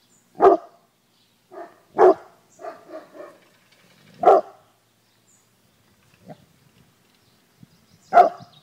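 A large dog, a Saint Bernard, barking as a guard dog: deep single barks spaced a couple of seconds apart, with a few softer woofs between them and a pause of several seconds before the last loud bark.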